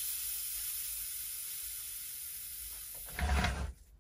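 Air hissing steadily out of the pressure-release valve on a Sealey VS820 pressure brake bleeder's tank, charged to about 10 PSI, slowly fading as the tank empties. A short handling knock comes about three seconds in, and then the hiss stops abruptly.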